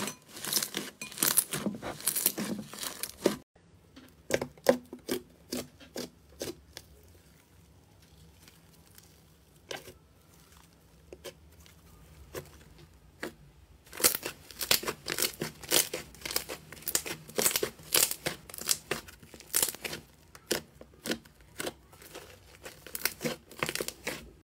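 Hands squeezing, pressing and stretching slime, making many quick sticky crackling and popping clicks. The clicks stop suddenly about three and a half seconds in and stay sparse for about ten seconds, then come thick and fast again from about fourteen seconds in.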